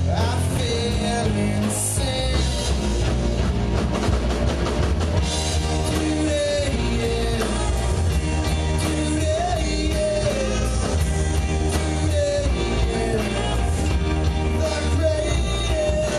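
Live rock band playing: a melody line over a steady bass and drum kit.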